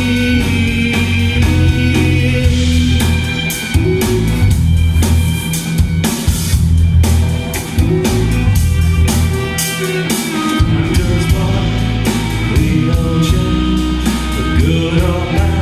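Live rock band playing an instrumental passage: electric guitar, bass and drum kit.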